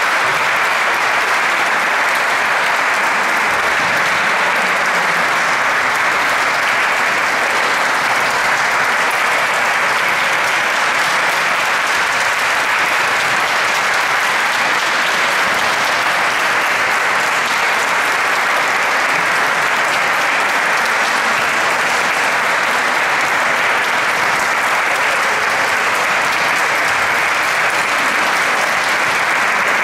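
An audience applauding steadily and at length.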